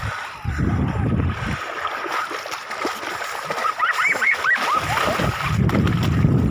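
Splashing of a small child running through shallow sea water, with short high squeals from the child about four seconds in. Wind rumbles on the phone microphone at the start and again near the end.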